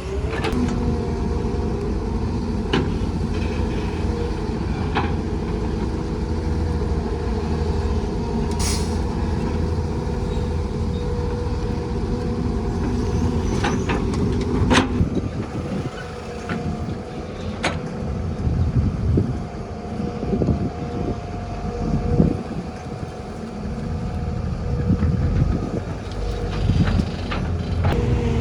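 Heavy diesel earthmoving machinery running, a steady engine drone broken by a few sharp metallic clanks. After about fifteen seconds the engine note becomes uneven, rising and falling as the machines work under load.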